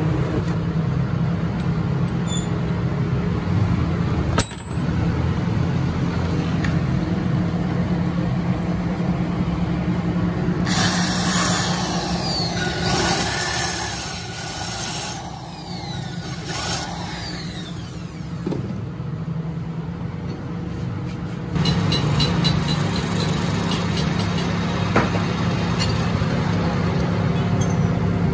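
Workshop machine motors running with a steady low hum. From about eleven seconds in, a drill bit cuts into a metal engine casing with a loud, hissing cutting noise for several seconds. Near the end a lathe runs while a drill bit held in its tailstock chuck is fed into the spinning work.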